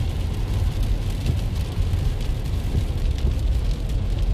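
Rain on a moving car: a steady low road rumble with scattered sharp taps of raindrops.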